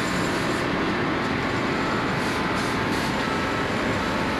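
Copper cable granulating machinery running with a steady, even din.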